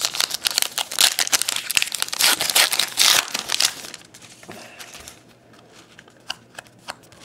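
A trading-card pack wrapper being torn open and crinkled, a loud crackling rustle for about four seconds. It then gives way to softer scattered ticks as the stack of cards is pulled out and handled.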